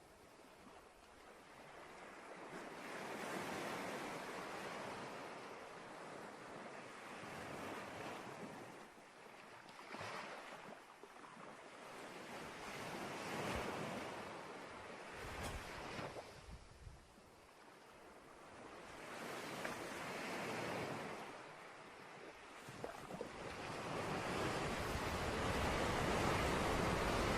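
Ocean surf breaking on a beach: waves swell and wash in, then fade, every few seconds, growing louder near the end.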